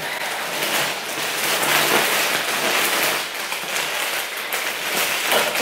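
Plastic mailing bag crinkling and rustling as it is handled and pulled at by hand to open it.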